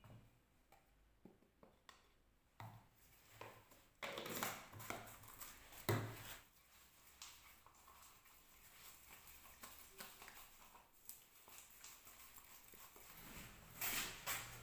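Faint scraping and knocking of dental impression paste being mixed with a spatula in a bowl, with a few louder knocks about four, six and fourteen seconds in.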